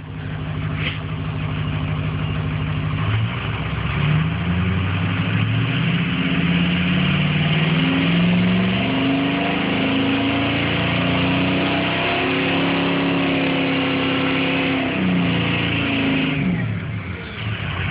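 Ford 6.0 Powerstroke V8 turbo-diesel running at idle, then revved up a few seconds in, held at raised revs for about ten seconds and let fall back to idle near the end. With the solenoid unplugged, the grinding sound by the tailpipe is gone.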